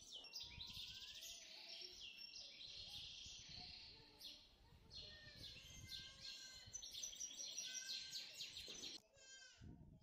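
Faint chorus of small songbirds, many overlapping chirps and quick trills, cutting out about nine seconds in.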